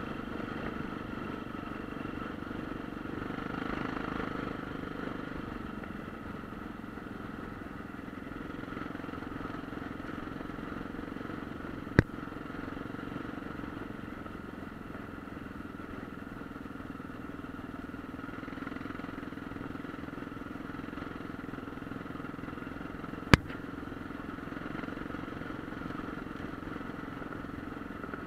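Motorcycle engine running at a steady, even pace while the bike is ridden, heard from the bike itself. Two sharp clicks stand out, one a little before halfway and one later on.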